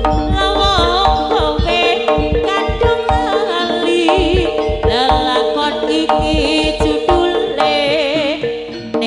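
Live jaranan gamelan music: rapid hand-drum strokes under struck metallophone notes, with a wavering, trilling melody line above.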